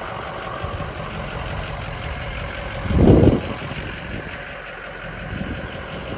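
Ford F-350 flatbed truck's engine running as it moves slowly, towing a loaded car trailer, with a brief louder rumble about three seconds in.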